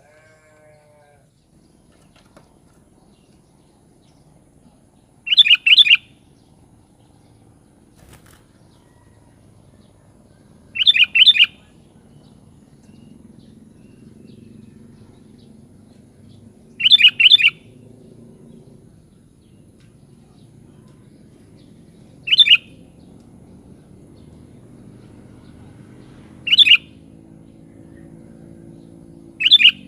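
Sooty-headed bulbul (kutilang) calling: six short bright calls, one every few seconds. The first three are quick clusters of two or three notes and the last three are single notes.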